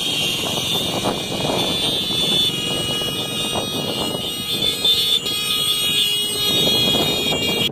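A column of small motorcycles and scooters riding slowly past, many small engines running at once in overlapping swells as each bike goes by, with a steady high-pitched tone over them.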